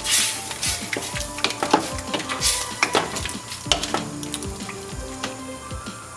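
Wooden spoon stirring chopped tomatoes in a stainless steel pot, with irregular scrapes and knocks against the pot while the contents sizzle on the heat.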